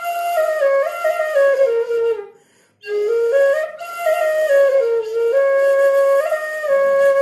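Solo flute playing a slow stepwise melody. It falls, breaks off for about half a second two seconds in, then rises and falls again and ends on a long held note.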